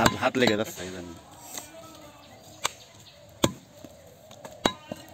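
Heavy butcher's knife chopping beef on a wooden tree-trunk chopping block: several sharp chops about a second apart, with a man's voice in the first second.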